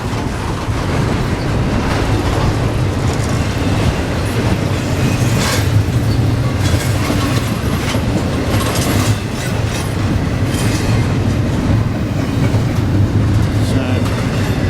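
Freight train cars rolling past close by: a steady loud rumble, with wheels knocking now and then over the rail.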